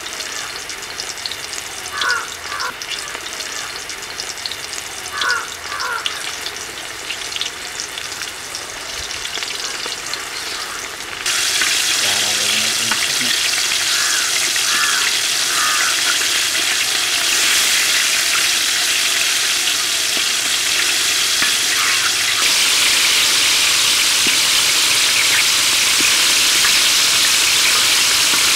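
Batter-coated chicken drumsticks deep-frying in hot oil in a large kadai: a steady sizzle and bubbling hiss. It steps up in loudness about eleven seconds in and again a little past twenty seconds.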